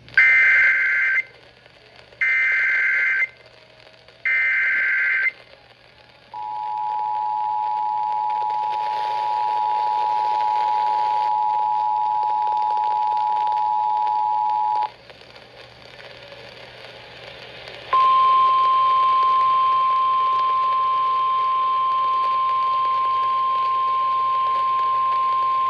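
Emergency Alert System activation for a flash flood warning. Three one-second bursts of SAME digital header data come first, then the two-tone 853/960 Hz EAS attention signal for about eight seconds. After a few seconds' pause comes the steady single 1050 Hz NOAA Weather Radio warning tone.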